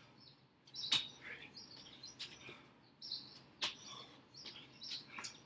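Burpees on a brick patio: four sharp impacts of hands and feet hitting the bricks, about one every second and a half.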